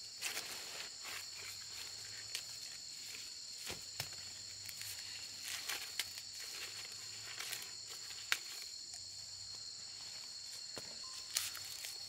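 Steady high-pitched chirring of insects in the field, with scattered rustling and a few sharp snaps of dry corn stalks and husks as ears of dried corn are picked by hand.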